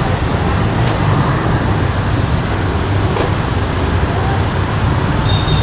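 Steady street-traffic noise: a continuous low rumble of passing motor vehicles.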